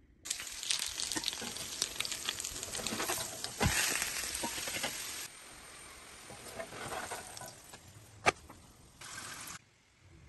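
Meat-filled flatbread sizzling and crackling on a hot ridged grill pan. The sizzle drops abruptly to a quieter level about five seconds in, and there is one sharp click near eight seconds.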